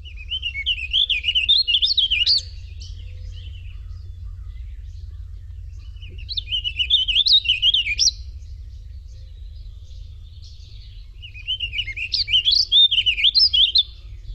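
Recording of a warbling vireo singing: three rolling, warbled song phrases, each about two seconds long and a few seconds apart, over a steady low hum.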